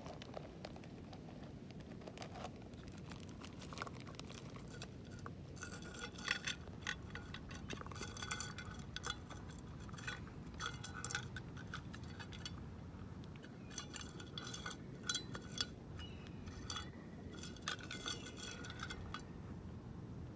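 A small metal food tin clinking and scraping on gravel as a raccoon dog eats from it, its snout knocking the tin. The clinks come in quick runs of several a second, starting a few seconds in and broken by short pauses.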